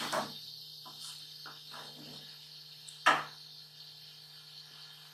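Wooden spatula stirring and scraping cooked rice in a metal pot, with two sharp knocks of the spatula against the pot: one at the start and a louder one about three seconds in. A faint steady hum runs underneath.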